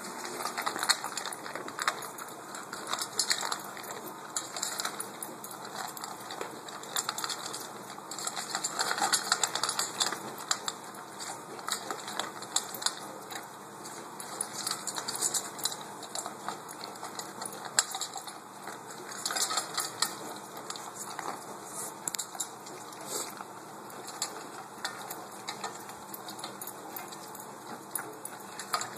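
Pit bull eating dry food from a stainless steel bowl: irregular crunching and chewing, with food and collar tags clicking against the metal bowl.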